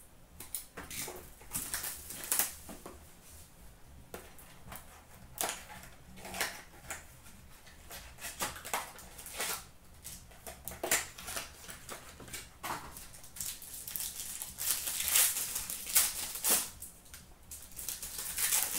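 Trading-card pack wrappers crinkling and being torn open, with the cards handled and shuffled, in irregular crackling rustles that are densest and loudest about two thirds of the way through.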